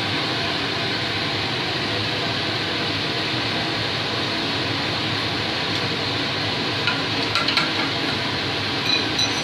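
Steady rushing noise of the forge's fan, the constant background of a working coal forge, with a few light metallic clinks near the end as tongs and hot steel knock in the fire.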